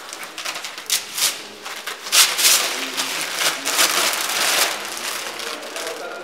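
Translucent transfer sheet being peeled off freshly applied vinyl wall lettering and gathered up: a dry rustling and crinkling with many small crackles, loudest in the middle.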